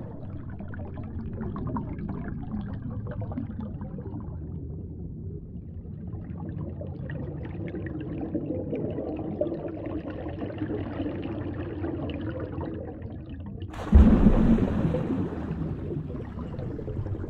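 Underwater ambience: a muffled, low rushing and gurgling of water. About fourteen seconds in a sudden, louder rush of water noise breaks in and fades over a couple of seconds.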